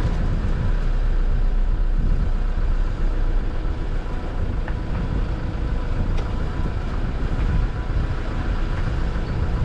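Livestock truck's engine running, heard as a steady low rumble with a faint constant hum.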